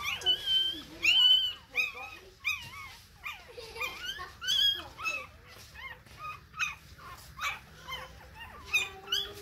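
Newborn puppies whimpering and squealing, a rapid string of short high-pitched cries, loudest about a second in and thinning out in the second half.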